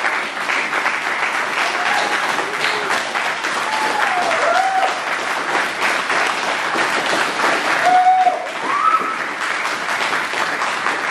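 A room full of people applauding steadily, with a few short calls from the group over the clapping.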